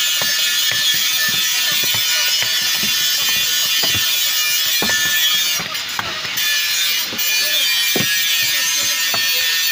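A large chopping knife striking through fish onto a wooden chopping block: irregular knocks, roughly one or two a second, over a steady hiss.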